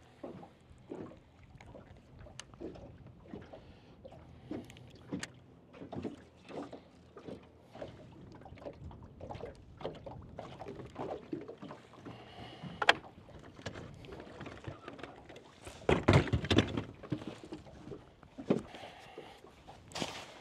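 Small waves slapping against a bass boat's hull in irregular splashes, with knocks from someone moving about on the deck. A sharp click comes about 13 seconds in, and a louder cluster of thumps and rustling about 16 seconds in.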